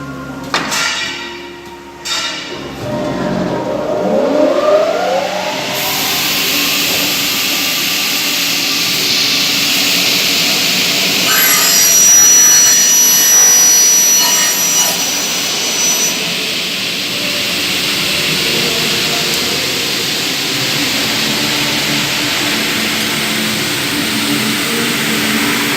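Double-head aluminium cutting saw with 500 mm blades driven by two 2.2 kW motors. After two sharp knocks near the start, the motors spin up with a rising whine, then run steadily with a loud hiss. A thin, high ringing joins in for a few seconds around the middle.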